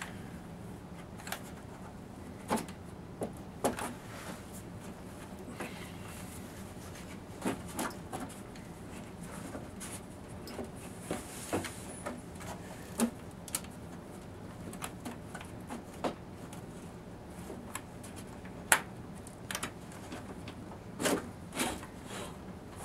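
Scattered knocks and clicks of the TRS-80 Model 4D's plastic case cover being handled and worked loose by gloved hands, over a faint steady hum.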